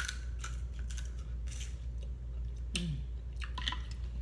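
Close-up eating sounds: irregular crisp clicks and crackles as a boiled shrimp is bitten, peeled and chewed, over a steady low hum.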